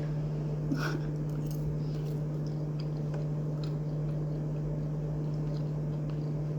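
A person chewing a mouthful of soft sweet potato flatbread, with faint small mouth clicks and squishes, over a steady low hum.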